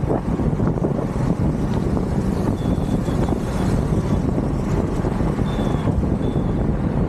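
Wind rushing over the microphone of a moving bicycle rider, a steady, heavy low rumble. A faint, thin high tone comes and goes a few times.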